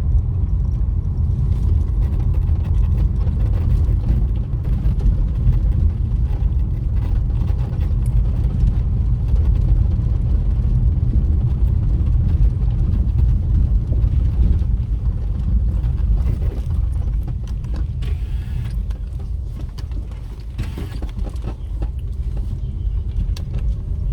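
Steady low rumble of a vehicle driving, heard from on board, easing a little about twenty seconds in.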